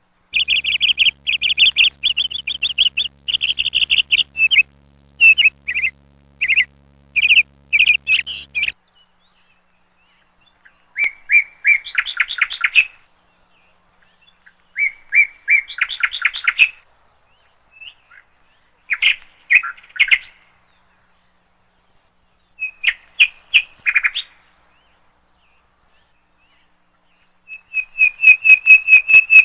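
A small songbird singing: rapid, almost continuous chirps for the first several seconds over a faint steady hum, then short trilled phrases repeated about every four seconds with silence between them.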